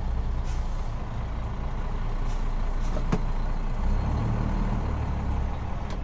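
Truck engine idling steadily, heard from inside the cab; the low hum grows a little about four seconds in.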